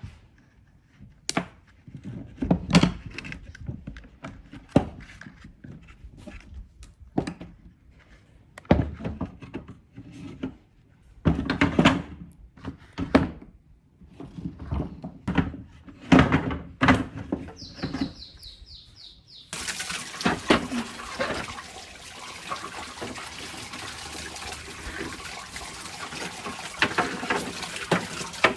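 Irregular knocks and clunks of hard objects being handled, then about two-thirds of the way in a steady hissing rush starts suddenly and keeps going.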